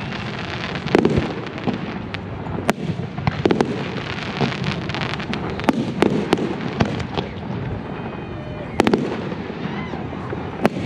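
Aerial fireworks shells bursting in a steady barrage: sharp booms every second or two over a continuous dense crackle.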